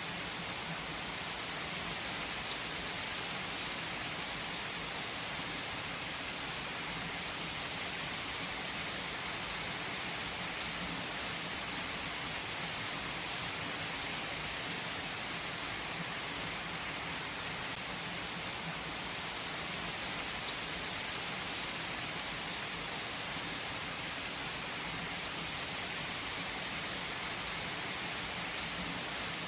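Heavy rain falling steadily on trees and leaves: a dense, even hiss of drops with a few sharper individual drop hits.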